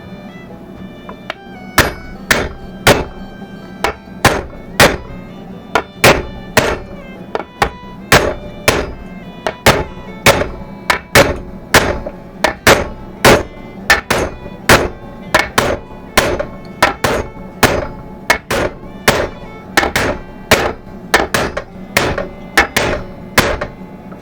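A hammer banging a wheel bearing race into the front hub of a 1992 Nissan pickup. It is a long run of sharp metal strikes, about one and a half a second, starting about two seconds in. Background music plays throughout.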